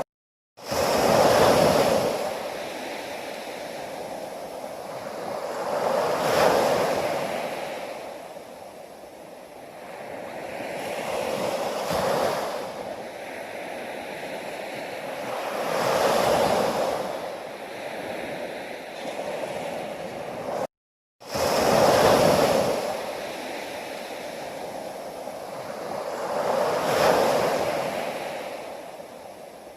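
Ocean waves breaking and washing ashore, each wave swelling and fading about every five seconds. The sound cuts out completely for a fraction of a second twice, once at the start and once about two-thirds through.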